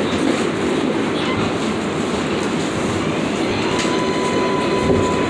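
New York City Subway 7 train running, a steady rumble of wheels and motors with a faint rising whine. A steady high-pitched tone joins about two-thirds of the way through.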